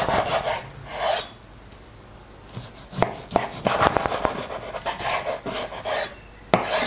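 Kitchen knife slicing between raw pork ribs and striking a wooden cutting board: a couple of strokes at first, then a quick run of cuts through the second half, ending with one sharp knock of the blade on the board.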